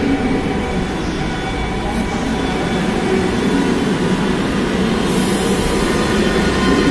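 Lucknow Metro train at a station platform: a steady rumble and hum with a few faint steady high tones, growing a little louder near the end.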